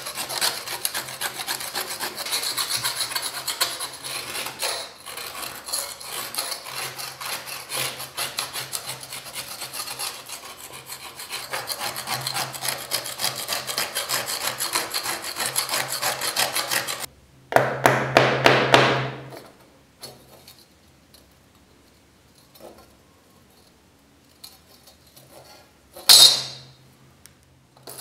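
A thin metal scraper blade scraping thick, flaking rust off a heavily rusted steel knife blade in quick, continuous strokes. After about seventeen seconds comes a louder burst of scraping lasting about two seconds, then a quiet stretch with a few faint ticks and one short, sharp sound near the end.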